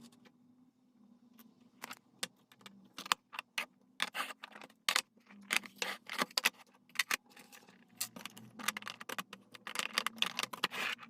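Small hard objects clinking and rattling as they are handled, in quick irregular clicks that grow busier after the first couple of seconds, over a faint low hum.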